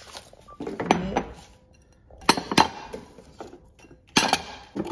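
Grey ceramic bowls and plates clinking against each other as they are handled and set down in a stack, several sharp clinks with short ringing: one about a second in, two close together mid-way, and more near the end.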